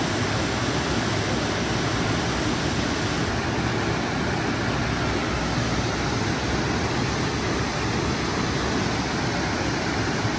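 Steady rush of falling water, even and unbroken, with no gusts or breaks.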